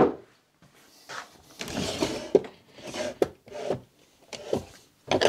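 Handling noises as a steel wheel and hand tools are worked: irregular rubbing and scraping, broken by several short knocks and clicks.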